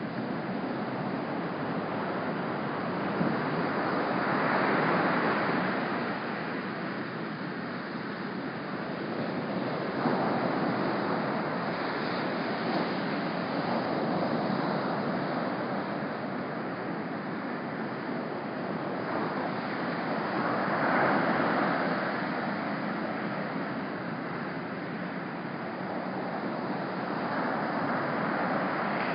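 Small, choppy ocean surf breaking and washing up the beach, a steady rush that swells louder twice, about five seconds in and again about twenty-one seconds in.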